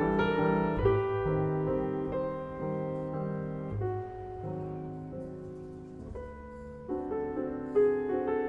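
Background piano music: slow, sustained chords changing every second or so.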